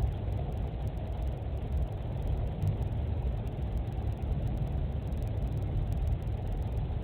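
A steady low rumbling noise with no distinct events.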